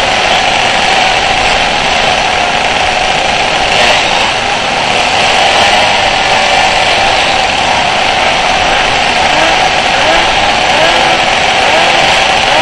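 A grid of small pocket bike engines idling together in a dense, high buzz, with riders blipping the throttles in short rising revs in the later part.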